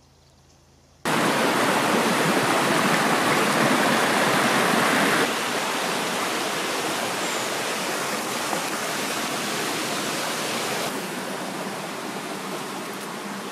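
Steady rushing of running water, like a stream or small waterfall. It cuts in suddenly about a second in and drops a little in level twice, around five and eleven seconds in.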